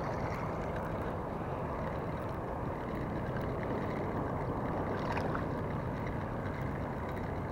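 Steady outdoor background noise: an even, continuous hiss and rumble with no distinct event standing out.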